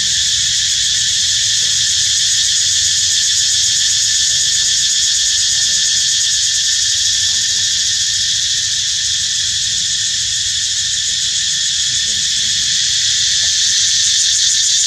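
A dense daytime insect chorus in tropical forest: a loud, steady, high-pitched drone with a thin steady tone beneath it, pulsing slightly near the end.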